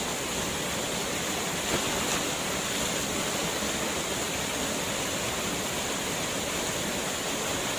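Steady rush of a waterfall pouring into a pool.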